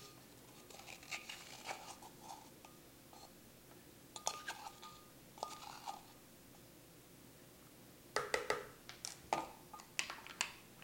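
Measuring spoons and cups lightly clinking and tapping against a mixing bowl as dry ingredients are added, with a brief ringing tone about four seconds in and a quicker run of taps and clatter near the end.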